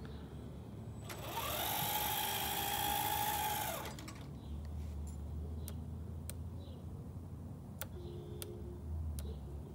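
Electric drive motor and gearbox of a 1:14 Kabolite 6x6 RC dump truck whining as the truck drives forward for about three seconds. The pitch rises as it speeds up and drops as it stops. A few faint sharp clicks follow.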